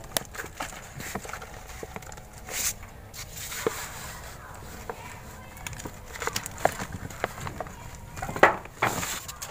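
Woven plastic sacks rustling and scraping as a hand pushes into the gap between them, with scattered small clicks and knocks; louder scratchy rustles come about two and a half seconds in and again near the end.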